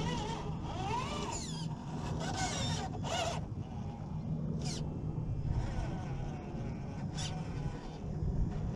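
Scale RC crawler truck's electric motor and geartrain whining, rising and falling in pitch with the throttle during the first few seconds as the truck pulls a small trailer, with two short high buzzes later on.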